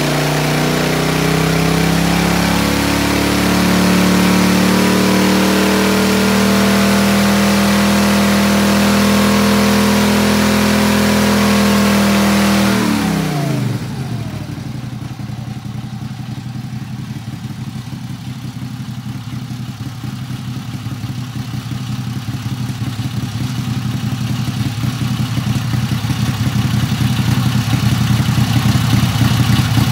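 Briggs & Stratton Vanguard V-twin engine at wide open throttle on a dyno, its pitch climbing slowly and then holding flat instead of revving out, which the owner suspects is valve float. About halfway through it is let off and drops quickly to idle.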